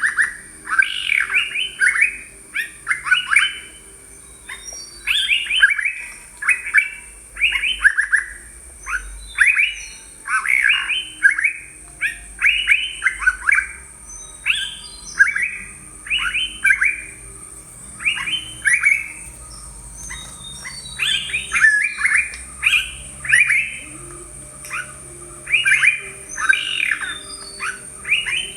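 Yellow-browed bulbul calling: clusters of short, quick notes that each drop in pitch, given over and over in chattering phrases with brief gaps between them.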